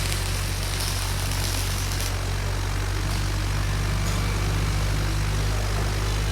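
Welding machine running with a steady electric hum. A high hiss over it drops back about two seconds in.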